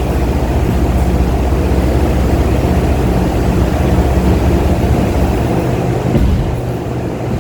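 2013 Ford F-150 pickup being driven: steady engine and road noise with a low engine hum, easing a little about six seconds in. The engine has a misfire on cylinder 5.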